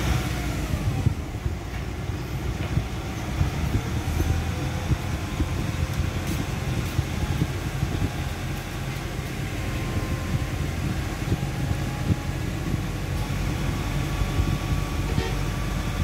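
Nissan car engine running with the car parked, its speed easing down from about 2,000 rpm toward 1,500 rpm as a steady hum.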